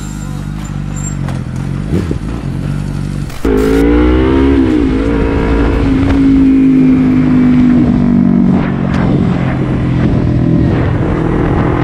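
Sport motorcycle engine heard from the rider's own bike, with low wind rumble. About three and a half seconds in it gets louder and revs up and down, then holds a steady pitch while riding along. Before that a quieter steady engine drone.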